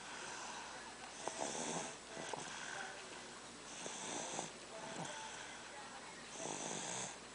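Snoring in deep sleep: about three slow, noisy breaths, one every two and a half seconds or so.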